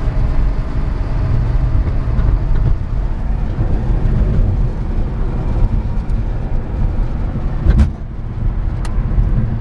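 Electric-converted 1978 Porsche Carrera heard from inside the cabin while driving: a steady low rumble of tyre and wind noise, with a sharp knock about eight seconds in.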